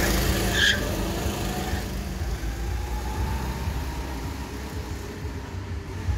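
Go-kart engine passing close by and then fading as the kart drives away, with a faint engine whine that rises and falls further off.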